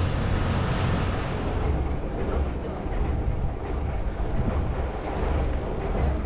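Tour boat's engine running steadily under way, with wind rushing over the microphone; the hiss of the wind eases about two seconds in.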